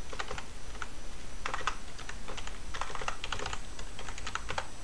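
Typing on a computer keyboard: quick irregular runs of keystrokes with short pauses between them.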